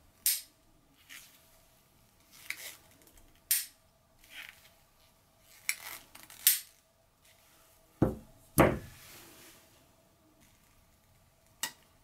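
DMM Ultra D screwgate carabiner, a standard gate without noise damping, being worked by hand: the screw sleeve turned and the gate opened and snapped shut. It gives about ten sharp metallic clicks and clacks at irregular intervals, the loudest two about eight seconds in.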